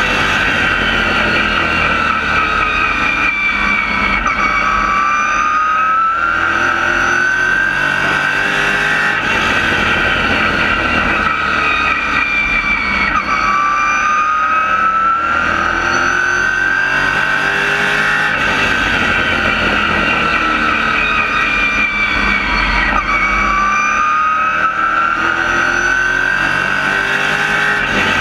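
Race car engine at racing speed, heard from inside the cockpit, its pitch dipping and climbing back three times, about every nine to ten seconds, as it eases off for the turns and builds speed again on each lap.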